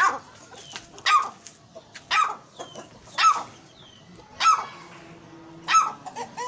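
An animal calling loudly and sharply six times, about once a second, with faint high chirps between the calls.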